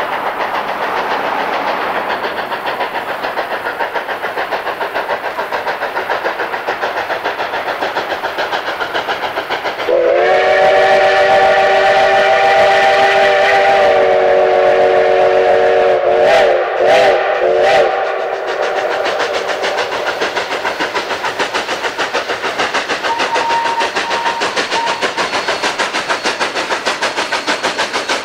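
Narrow-gauge K-36 Mikado steam locomotive 488 working toward the listener with a steady fast chuffing from its exhaust. About ten seconds in its chime steam whistle sounds one long blast of about six seconds, then a few short toots, over the chuffing.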